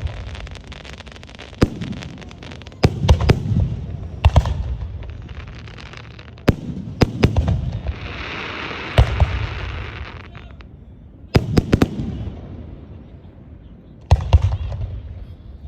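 Aerial fireworks shells bursting: sharp bangs singly and in quick clusters of two to four, each trailing off in a low rolling rumble. About two seconds of hissing crackle comes near the middle.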